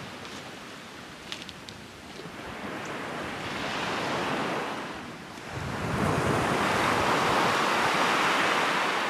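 Sea waves breaking on a shingle beach, in two long swells of surf, the second louder.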